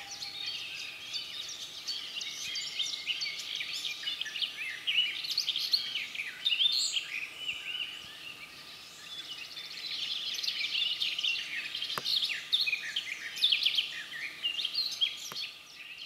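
A chorus of many songbirds singing at once, dense overlapping chirps and trills, with a faint steady high tone underneath. Two faint clicks come near the end, and the sound fades out at the close.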